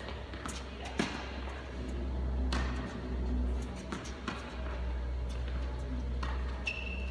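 Tennis balls being hit with rackets and bouncing on an indoor court. There are sharp, echoing pops about a second or so apart over a steady low hum, and a brief high squeak near the end.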